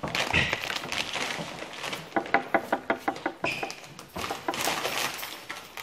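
A plastic snack bag crinkling and rustling right at the microphone as it is handled, in irregular sharp crackles. About two seconds in comes a quick run of about eight short pitched pulses.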